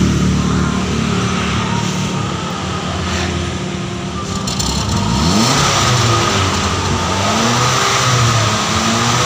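Honda Mobilio's four-cylinder petrol engine being revved repeatedly, its pitch climbing about five seconds in and then rising and falling. It is being revved to burn off a carbon-cleaning fluid fed in through the intake manifold.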